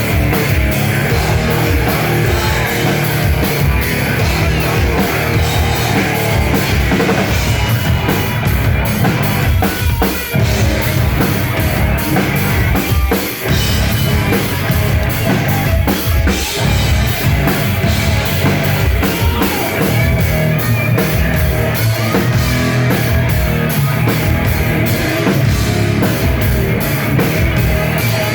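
Loud live heavy metal band playing with a pounding drum kit and distorted guitar. The sound is dense and continuous, with short drops near the middle.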